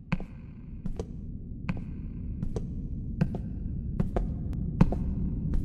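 Film sound design: a low rumbling drone fading in and growing louder, with sharp clicks about once a second that come faster and in pairs toward the end.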